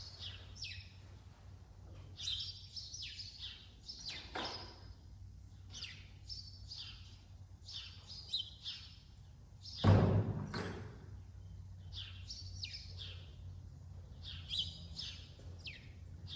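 Small birds chirping in short, repeated calls, over a steady low hum. About ten seconds in there is one loud, sudden noise that fades over about a second.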